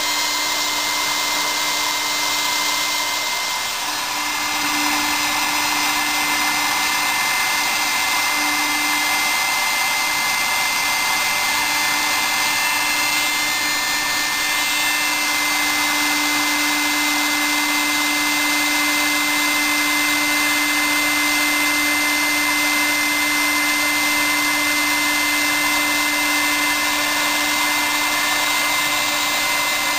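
Hobby CNC milling machine cutting aluminium with a small end mill under coolant: a steady whir of spindle and cut with a fixed high tone and a low tone that grows stronger about halfway through.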